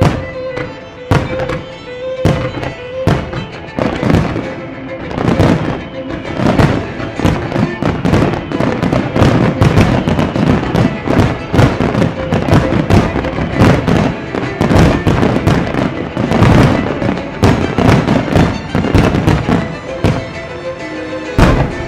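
Aerial firework shells bursting in rapid, overlapping succession as a finale barrage, with background music underneath. The bursts come a few at a time at first, then pack into a near-continuous volley from about four seconds in, thinning slightly near the end.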